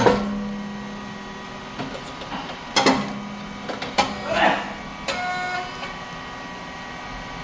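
Rice cake popping machine running: a sharp bang right at the start, followed by a steady hum that fades, then two more sharp knocks about three and four seconds in, and a brief steady tone about five seconds in.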